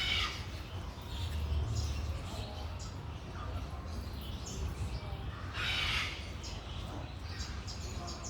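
Birds calling now and then, with harsh, crow-like calls; the loudest comes a little before six seconds in, over a steady low rumble of outdoor background.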